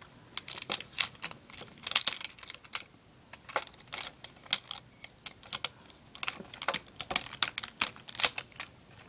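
Hard plastic parts of a Transformers Voyager Grindor action figure clicking and clacking as its rotor blades are worked together and folded during transformation: quick, irregular clicks throughout.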